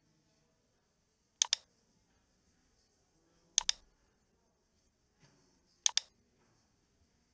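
Computer mouse clicking: three pairs of sharp clicks, about two seconds apart.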